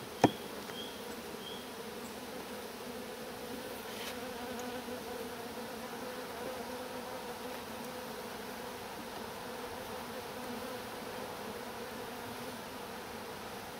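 Honeybees buzzing in a steady hum over an opened hive. A single sharp knock about a quarter second in, from the metal hive tool working against the wooden hive box and frames.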